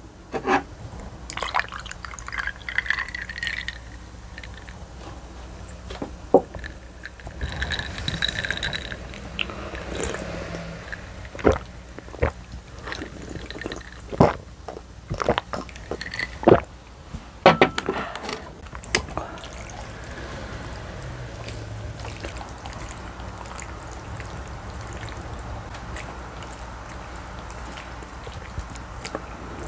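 A drink poured from a paper carton into a glass mug, followed by a series of short sharp clicks as the drink is sipped and swallowed from the mug.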